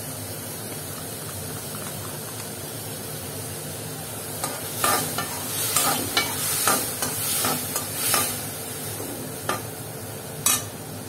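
Diced tomatoes sizzling in ghee in a steel kadhai. From about four seconds in, a steel spoon stirs them, scraping and knocking against the pan in a run of strokes, with one sharp clink near the end.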